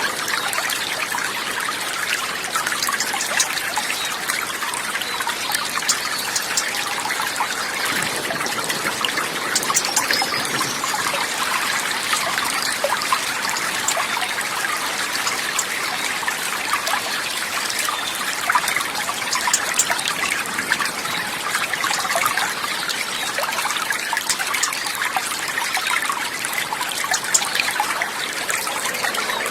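Running water trickling steadily, as from a small stream, with a dense patter of small splashes and no change in level.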